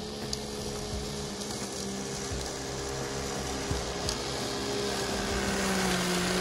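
Small electric motor of a 3D-printed lawn mower running with a steady hum as it cuts through tall grass. The hum dips slightly in pitch and gets louder near the end.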